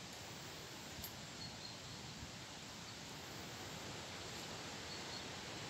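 Quiet outdoor background: a steady hiss with a few faint, short high chirps and one soft click about a second in.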